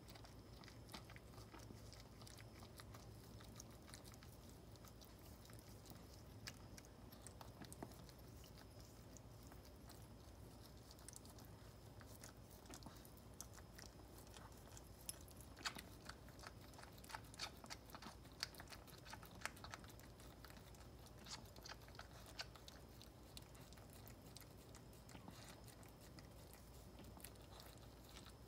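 Faint, scattered wet clicks and smacks of a Maltese mother dog licking and nibbling at her newborn puppies, busiest through the middle of the stretch, over a steady low hum.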